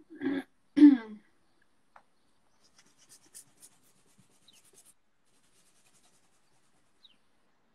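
Two short vocal sounds just after the start, then a pen scratching faintly on paper in short strokes while drawing.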